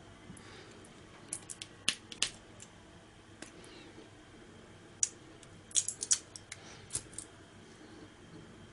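Small hand tools clicking and snipping at the metal tabs of a laptop battery's flat lithium cells: scattered sharp clicks, with a quick cluster about six seconds in.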